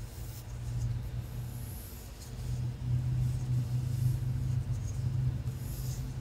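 Hair being combed and brushed close to the microphone: soft scratchy strokes at intervals over a steady low rumble that grows louder about halfway through.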